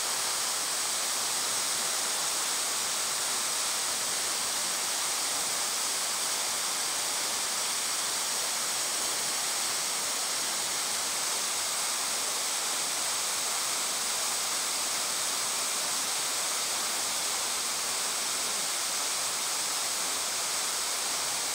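Waterfall's falling water rushing in a steady, even hiss, with no change throughout.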